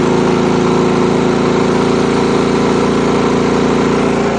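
DuroMax XP9000iH inverter generator's 459cc engine running steadily on gasoline under a heavy load of about 7,200 watts from an electric heater.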